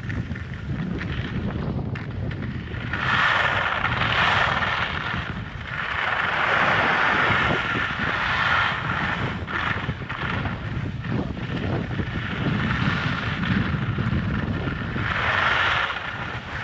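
Strong headwind buffeting the microphone of a skier going downhill, with the hiss of skis sliding and carving on the snow swelling and fading three times.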